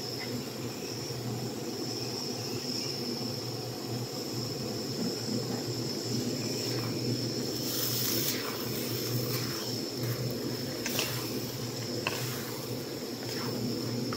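Shrimp and broccoli stir-fry frying in a pan, a steady sizzle, with a spatula scraping and tapping the pan several times from about halfway on. A steady high insect drone runs underneath.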